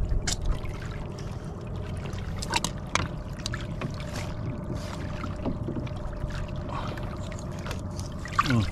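Sea water lapping and sloshing against a small outrigger boat's hull, with a faint steady hum underneath and a few light clicks and knocks as a fishing net is handled in the boat.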